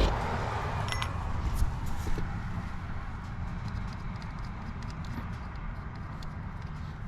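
A steady low hum with wind noise, and a few light metallic clicks in the first two seconds as the air hose chucks are handled.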